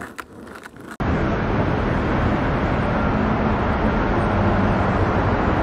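Steady city traffic noise from the streets below, an even rumble with a faint low hum running under it, starting abruptly about a second in.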